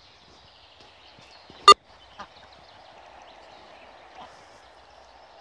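Faint, steady background of domestic ducks calling softly on a pond. It is broken about a second and a half in by one sharp, very loud click, with a much smaller click half a second later.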